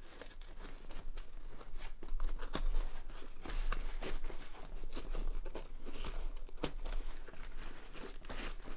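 Nylon fabric and webbing of a Daiichiseiko Sub Pocket pouch and Egi Rack MS-W10 bag rustling and scraping as a strap is worked through the MOLLE loops, with irregular small rubs and clicks.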